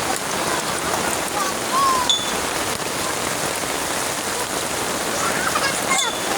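Steady rain falling and pattering on surfaces, an even hiss with no break.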